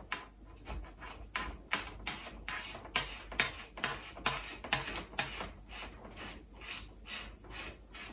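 Coax cable being wound by hand onto the antenna's coil former. It makes a regular rubbing, scraping stroke about two and a half times a second.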